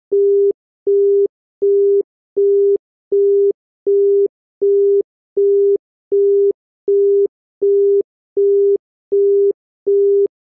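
Bahrain telephone busy tone of the ETSI set, which also serves as the congestion tone: a single steady low tone pulsing on and off in even beeps, a little more than one a second. It signals that the called line is busy or that the network is congested.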